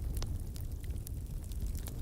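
Wood fire burning with a low, steady roar of flames and scattered sharp crackles and pops from the burning firewood.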